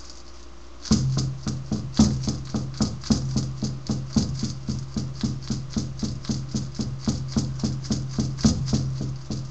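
A rattle shaken in a steady beat, about four shakes a second, over a steady low drone. It starts about a second in.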